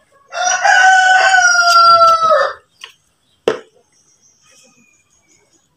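A rooster crowing once, one long call of a bit over two seconds that drops in pitch at the end. A single sharp knock follows about a second later.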